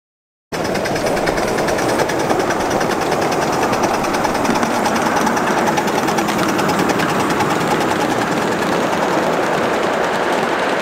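A 7.5-inch gauge live steam locomotive and its ride-on cars running past at speed: a loud, steady, fast rattle of exhaust beats and wheels on the rails, starting suddenly about half a second in.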